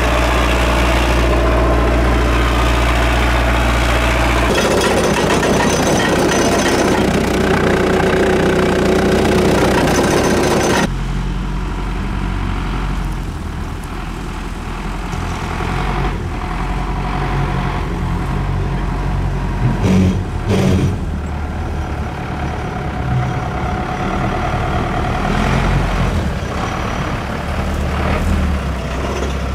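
Engine of an old tracked vehicle running: steady up close at first, changing its note about four seconds in. After about eleven seconds it is heard from farther off as the vehicle drives, the engine note rising and falling, with a few knocks around twenty seconds in.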